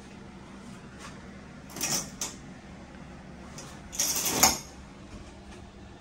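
A door being opened and closed: two short noisy sounds about two seconds apart, the second louder and longer, over a steady low hum.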